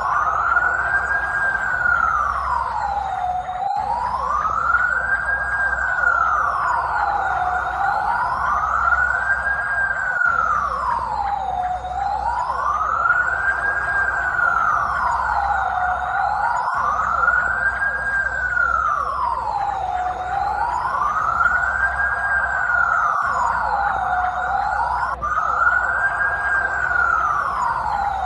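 Police siren on its wail setting: a single tone rising and falling smoothly in pitch, one full cycle about every four seconds, at a steady level throughout.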